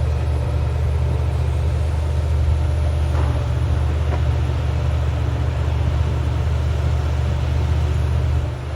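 Heavy diesel engine of a demolition excavator running steadily with a low hum. Two faint knocks come about three and four seconds in.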